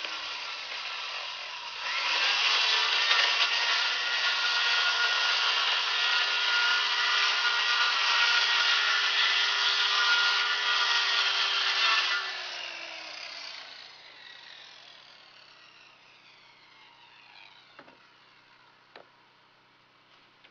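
Circular saw spinning up about two seconds in and ripping through a 1/4-inch plywood soffit panel for about ten seconds. The blade is then freed and the motor winds down with a falling whine, fading out near the end with a few light clicks.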